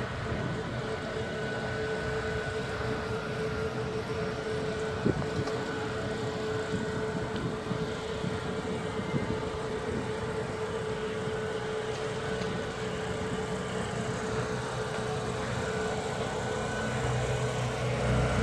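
Ram ProMaster 3500 camper van engine running as the van drives slowly up to the curb and idles, its low hum growing louder near the end as it comes close. A single sharp knock sounds about five seconds in.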